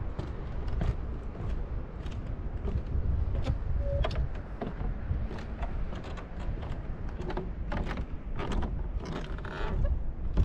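Footsteps on wooden boardwalk planks at a steady walking pace, with wind rumbling on the microphone.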